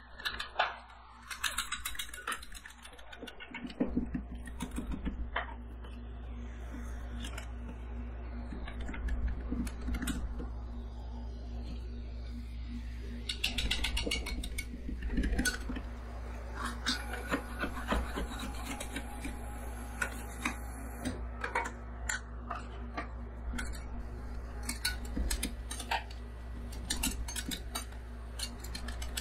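Two metal scrapers chopping and scraping an ice cream mixture on a steel cold plate, with quick irregular metal taps and clicks as the blades strike the plate. A low steady hum comes in about four seconds in and runs under the tapping.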